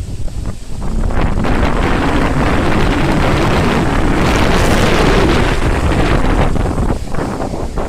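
Storm wind gusting through trees, with wind rumbling on the microphone; a gust swells about a second in, is strongest around the middle, and dies down near the end.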